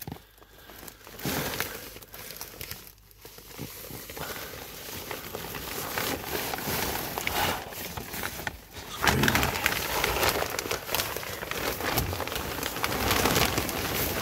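Plastic vapor barrier sheeting crinkling and rustling under a person crawling across it, with small crackles throughout, growing louder about nine seconds in.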